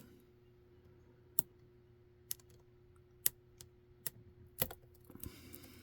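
Small sharp metallic clicks of single-pin picking in a Sterling TS007 3-star lock cylinder: a hook pick lifting and setting pins under tension, about five clicks spaced irregularly.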